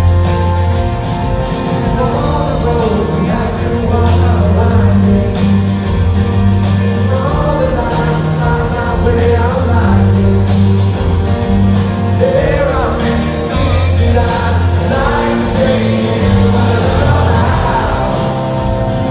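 Live rock band music: strummed guitar and a steady bass line, with singing over it.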